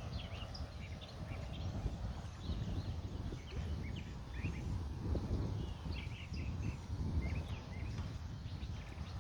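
Wind buffeting the microphone in a steady low rumble, with small birds chirping repeatedly throughout.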